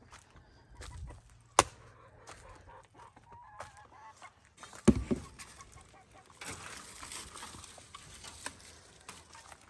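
Chickens clucking softly, with a sharp click about one and a half seconds in and a loud thump about five seconds in. From about six and a half seconds on, a steady hiss runs under the clucking.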